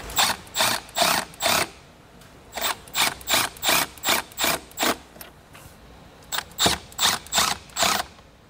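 Sharp metallic clicking in three runs of several clicks each, about three clicks a second, with short pauses between the runs.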